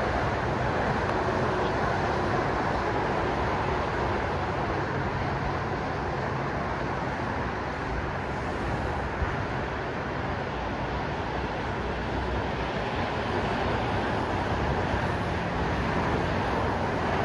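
Steady hum of road traffic from a busy highway interchange.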